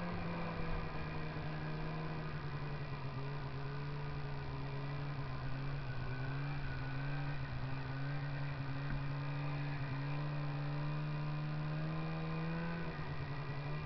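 Snowmobile engine running at a fairly steady throttle as the sled crosses snow, its pitch wavering briefly near the end.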